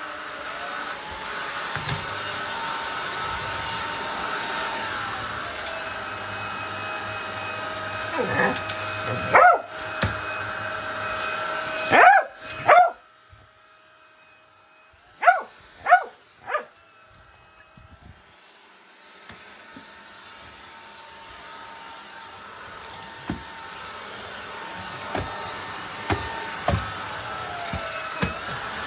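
Vacuum cleaner running with a steady whine while a border collie barks at it in sharp single barks, mostly in a cluster through the middle. The vacuum quietens for a few seconds in the middle and then grows louder again.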